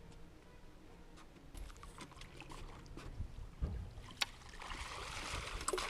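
Scattered knocks and clicks on a small fishing boat, then a rush of splashing water near the end.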